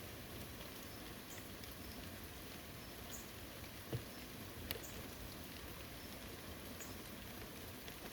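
Steady rain falling on foliage and surfaces, with scattered distinct drops tapping. A heavier drop knocks about four seconds in, and a sharp tap follows just under a second later.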